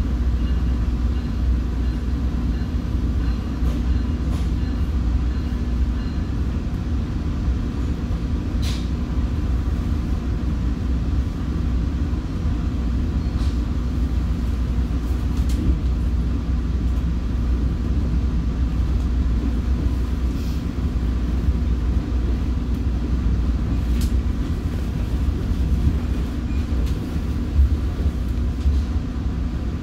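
Commuter train running between stations: a steady low rumble with a few sharp clicks scattered through it.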